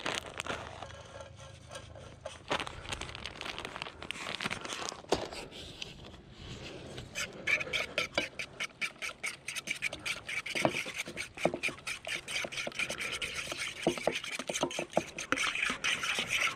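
A fork beating raw eggs and shredded cheese in a small camping pot, with rapid scraping and clinking against the pot's sides from about a third of the way in. Before that comes the rustle of the plastic cheese bag as the cheese is tipped in.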